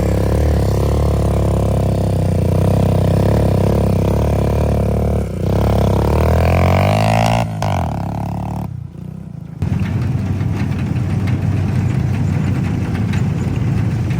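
Off-road vehicle engine running, rising in pitch as it revs up about six to seven seconds in. About nine seconds in the sound drops away briefly, then a rougher engine sound carries on.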